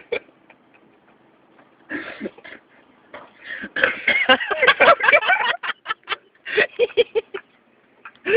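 People laughing in loud bursts, with short rapid 'ha-ha' pulses near the end.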